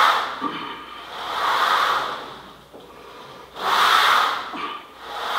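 A man's heavy breathing from exertion: long, noisy breaths about every two seconds, keeping time with the alternating one-arm upright-row lifts.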